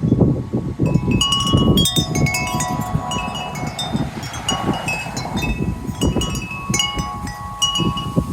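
Wind chimes ringing in the breeze, many overlapping notes struck at random and left to ring, thickening about a second in. Underneath runs a low, gusty rumble of wind.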